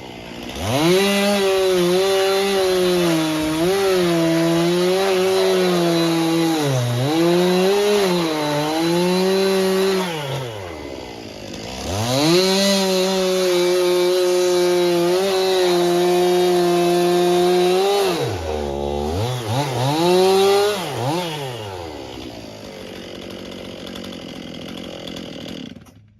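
Small two-stroke engine running at high revs with short dips in pitch, easing off twice and revving back up, then dropping lower and cutting off at the very end.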